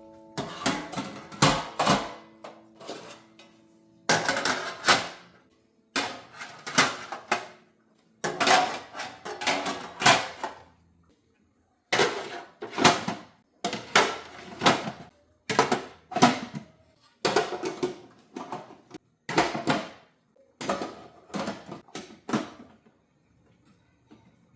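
Kitchen work sounds: short runs of quick, sharp knocks and clinks from dishes and utensils being handled, broken by sudden brief silences.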